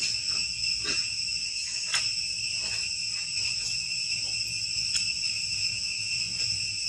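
Steady high-pitched drone of forest insects, a constant chorus held at a few fixed pitches, with a couple of faint clicks.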